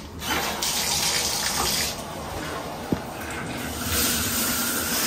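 Shower turned on with its single-lever valve: water starts spraying from the handheld shower head almost at once and runs steadily onto the tiled stall. A single brief click about three seconds in.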